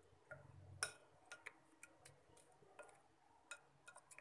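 A spoon stirring yogurt raita in a glass bowl, its edge faintly clicking against the glass in about a dozen light, irregular ticks.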